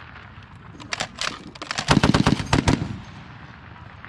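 Browning M2 .50-calibre heavy machine gun firing short bursts: a few rounds about a second in, then a louder, longer burst about two seconds in.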